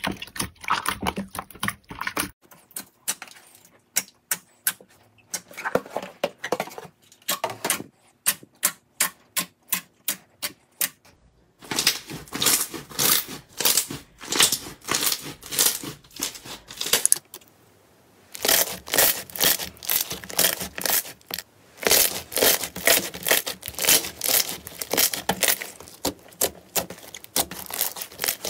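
Hands kneading and squeezing slime: a dense run of wet clicks and crackling pops, irregular in rhythm, coming in several stretches with short breaks.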